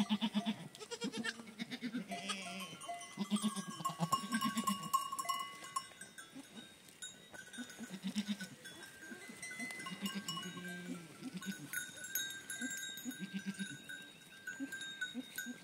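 Flock of goats and sheep bleating, many short calls overlapping, with bells on the animals clinking in the first few seconds.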